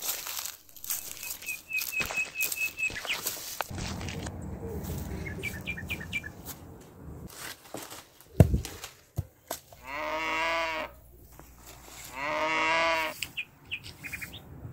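A single heavy thud about eight and a half seconds in: a breadfruit, knocked from the tree with a bamboo pole, hits the ground. Two long calls from farm livestock follow about two seconds apart, with a brief run of quick high chirps near the start.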